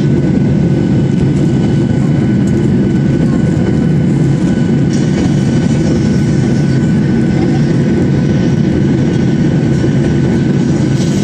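Steady cabin noise of a Boeing 737-800 airliner climbing after takeoff: jet engine and rushing airflow heard from a window seat over the wing, loud and unchanging, with a thin steady whine above it.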